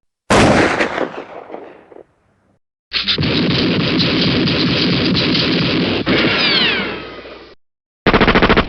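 A string of war sound effects. First a sudden loud blast that dies away over about two seconds, then a long dense barrage of about four and a half seconds with falling whistles near its end, then a short burst of rapid gunfire near the end.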